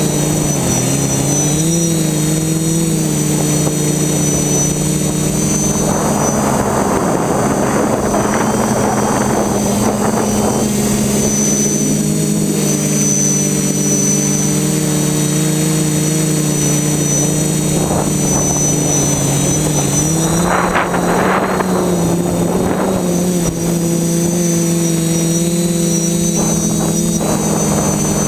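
Electric motors and propellers of an FPV drone in flight, picked up by its onboard GoPro: a steady buzzing hum with a thin high whine above it, its pitch shifting slightly with throttle. Rushes of air noise swell over it about six seconds in and again around twenty seconds in.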